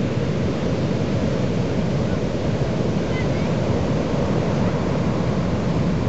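Heavy North Sea surf from a strong swell breaking and washing ashore in a continuous, steady rumble.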